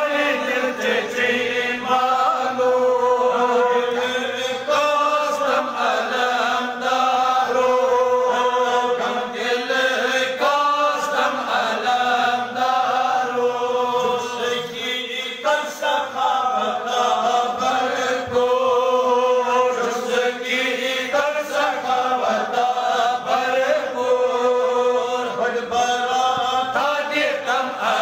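Devotional chanting: a voice sung in long melodic phrases of a few seconds each, with short breaks between them.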